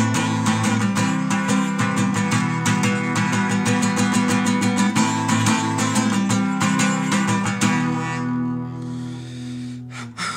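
Acoustic guitar strummed quickly in a steady rhythm of chords. About three-quarters of the way through, the strumming stops and the last chord rings on and fades.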